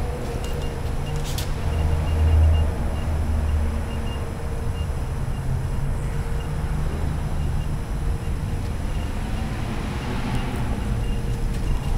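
Steel welding cart on knobby pneumatic tires rolling across a concrete floor: a steady low rumble, with one sharp click about a second and a half in.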